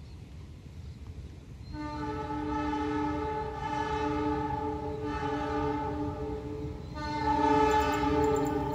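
Train's multi-note air horn sounding a long chord, starting about two seconds in. It breaks off briefly, then sounds a second, louder blast near the end, over a low rumble.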